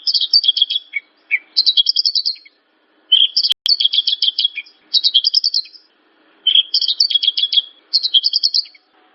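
Javan bush lark (branjangan) singing: repeated high-pitched phrases of fast, chattering notes, each lasting about a second, with short pauses between them. A single sharp click sounds about three and a half seconds in.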